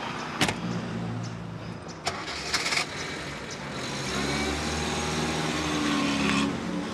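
A car door slams shut about half a second in, then the car's engine is started and revs with a rising and falling pitch as the car pulls away.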